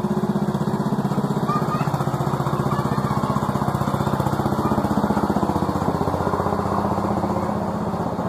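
A small engine running steadily with a fast even pulse, loudest about midway and easing slightly near the end.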